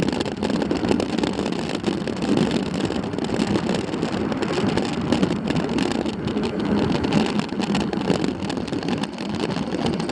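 Steady rushing noise from riding, with many small clicks and rattles throughout.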